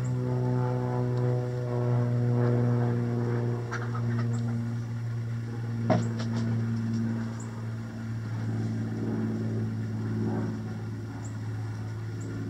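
Steady low drone of a propeller airplane passing overhead, its pitch sinking slightly, with faint chicken sounds underneath. A single sharp click about six seconds in.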